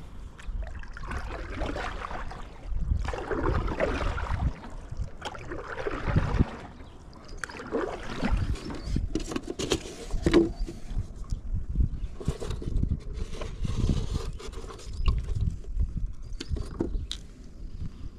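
Gear being handled aboard a plastic kayak: irregular scrapes, rustles and knocks as a fishing rod is moved and the lid of a foam minnow bucket is opened and handled.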